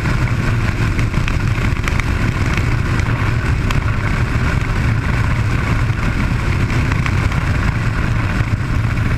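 Suzuki sportbike under way at a steady speed, the engine running evenly under a constant rush of wind over the camera.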